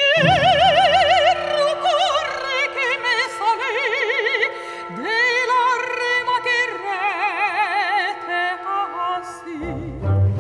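Operatic soprano singing long held notes with wide vibrato over sustained orchestral chords. A little before the end the orchestra's low strings come in.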